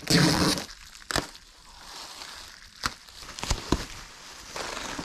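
Packing tape ripped off a cardboard shipping box in one loud burst, followed by scattered clicks and knocks of the box being handled and the crinkling of bubble wrap being pulled open near the end.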